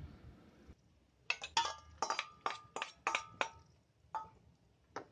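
A metal spoon clinking against steel dishes as beaten egg batter is scraped from a steel bowl and spread over rolled paratha dough on a steel plate: a rapid run of about ten light, ringing clinks, then a few more near the end.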